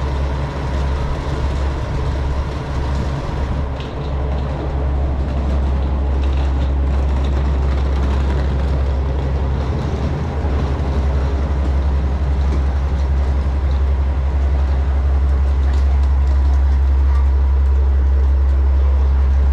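Diesel engine of a standing JR Kyushu KiHa 47-series railcar, the Ibusuki no Tamatebako, idling with a steady low drone that grows a little louder toward the end.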